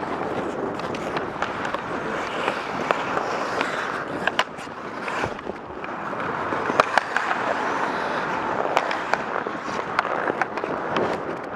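Ice hockey skate blades carving and scraping on rink ice, with sharp clicks of sticks and puck scattered through it, the strongest two close together about seven seconds in.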